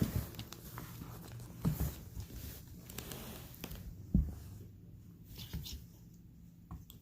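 A cat playing with a dead bird on the floor: irregular soft thumps and light pattering as the bird is batted and tossed about.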